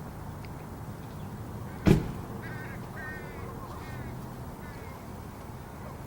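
A sharp knock about two seconds in, then a crow giving about four short caws.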